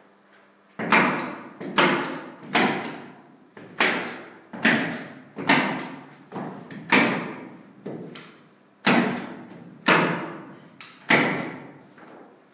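About a dozen sharp knocks at irregular intervals of roughly one a second, each ringing briefly, as a large paper sheet is fastened high on a wall.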